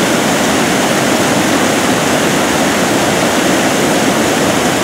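Brown floodwater rushing steadily down the overflowing spillway of the Chuviscar dam and churning in the river channel below. The reservoir is full and spilling after prolonged heavy rain.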